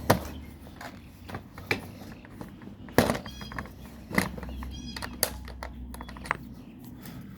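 Kayak cart parts clicking and knocking as a wheel, cap and pin are handled and fitted onto the axle, with sharper knocks just after the start and about three seconds in.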